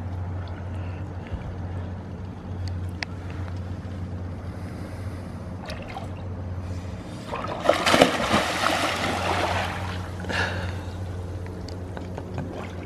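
Water trickling and splashing over a steady low hum, with a louder splash about eight seconds in.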